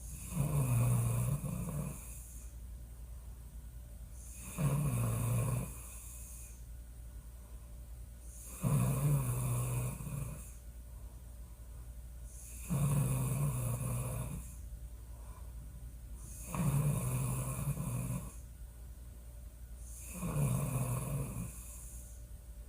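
A woman snoring loudly in her sleep. There are six snores, each lasting about a second, coming regularly about every four seconds.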